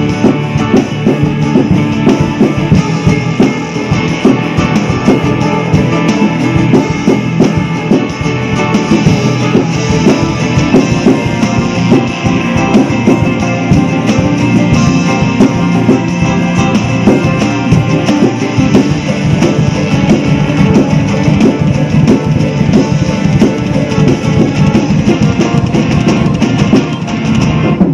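Acoustic drum kit played hard and fast, kick, toms and cymbals, along with a rock play-along backing track that has guitar in it.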